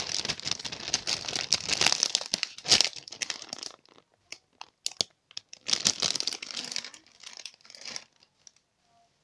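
Plastic packaging crinkling as a jumbo croissant squishy toy in its plastic bag is handled: a long spell of crackling for the first few seconds, then scattered crackles and a second spell about six seconds in.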